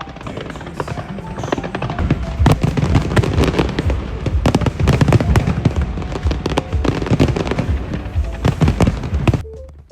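Fireworks display: many rapid, irregular bangs and crackling bursts over music. The sound cuts off abruptly just before the end.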